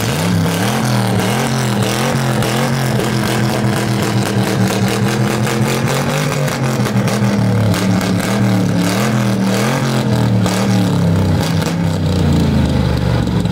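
Car engine with a loud exhaust being revved over and over, its pitch rising and falling in quick blips.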